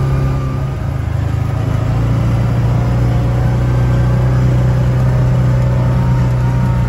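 Yamaha Wolverine R-Spec side-by-side's engine running under way at a steady speed, a low steady drone that eases briefly about a second in and then holds.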